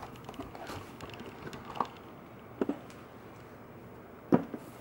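Leather camera case being handled and closed: a few scattered light knocks and clicks, with a single sharper knock near the end.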